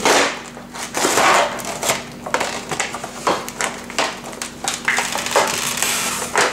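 Cardboard toy box being opened and a clear plastic packaging tray slid out of it: a string of irregular crinkling, rustling and scraping noises with sharp clicks between them.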